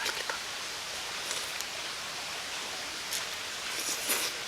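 Steady rushing of a mountain stream, with a few short faint clicks and rustles.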